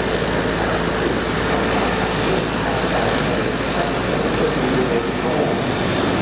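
Steady jet engine noise from an Airbus A350-900's twin Rolls-Royce Trent XWB turbofans on a low pass with the landing gear down.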